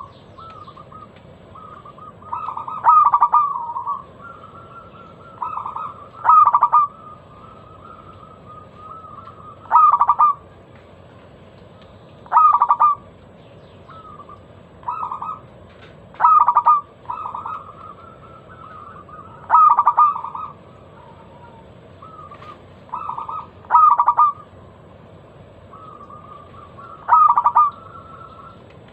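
A local zebra dove (perkutut) singing: a loud, clear cooing phrase repeated about every three and a half seconds, with softer coos between the phrases.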